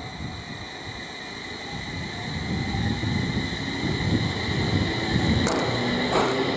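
JR East 701 series electric train accelerating past along the platform: low running rumble with a faint rising electric motor whine, and a couple of sharp wheel clacks over rail joints near the end.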